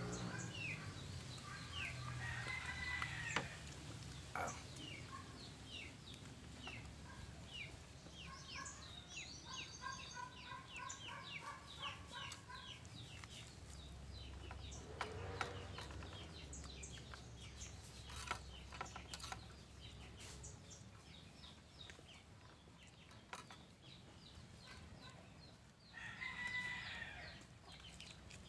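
Chickens clucking, with short high chirps repeating through much of the time and a few small clicks.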